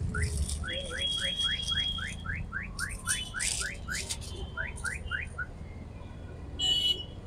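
Electronic alarm chirping: a rapid series of rising chirps, about four or five a second, that breaks off a little after three seconds in and resumes briefly for four more. A low steady rumble runs underneath.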